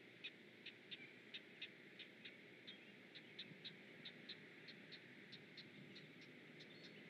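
Faint, quick high chirps about three a second, the begging calls of great blue heron nestlings as an adult feeds them, over a low steady hiss.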